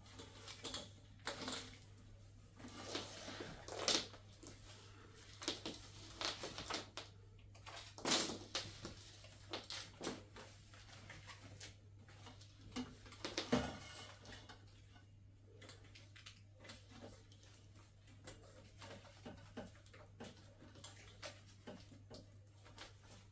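Metal curtain grommets clicking and sliding on a steel curtain rod, with curtain fabric rustling as it is handled. Irregular small clicks and rustles, with a few louder knocks, over a steady low hum.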